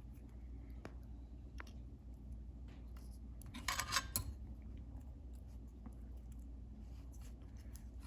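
Faint clicks and handling noises of small parts from a welding helmet's lens cartridge being worked by hand, with a brief, louder crinkly rustle about three and a half seconds in.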